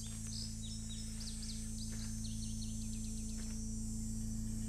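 Small birds giving many quick, short chirps that fall in pitch, dying away about three and a half seconds in, over a steady low hum that slowly grows louder.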